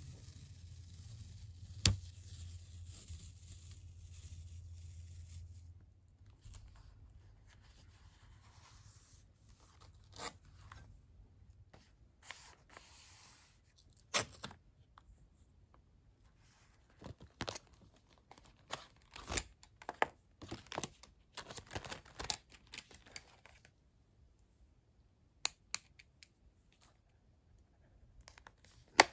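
Washi tape being pulled and torn and pressed onto paper notebook pages, with paper rustling and many short sharp taps and clicks.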